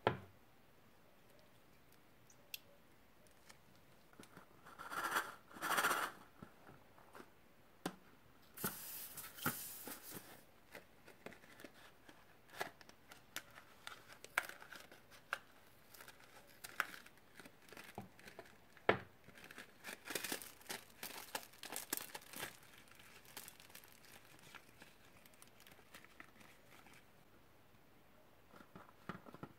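Scissors snipping open rubber balloons filled with small foam beads, with crinkling and tearing of the balloon rubber and scattered clicks as beads spill out. The louder rustling bursts come about five and nine seconds in.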